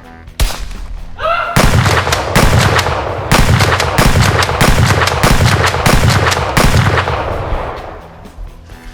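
Rapid, sustained gunfire sound effects over background music. The firing starts about a second and a half in and fades away near the end.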